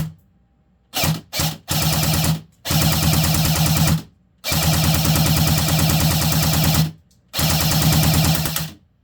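Barra 400e battery-powered BB gun firing on full auto: two short bursts, then four longer bursts of rapid-fire clicking with the electric gearbox's motor buzz. The longest burst runs about two and a half seconds.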